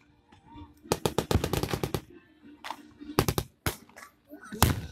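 Reenactment gunfire: a rapid machine-gun burst of about ten shots lasting about a second, then scattered single shots, the last one near the end the loudest and deepest.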